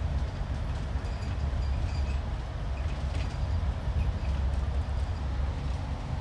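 Steady low rumble of engine and tyres heard from inside a bus cabin as it drives through a road tunnel.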